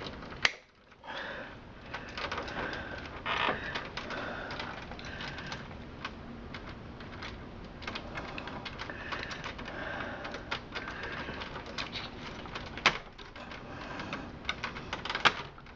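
Scattered clicks, snaps and rattles of plastic power and data connectors being worked loose inside a desktop PC case, with a few sharper snaps standing out, about half a second in and again near the end.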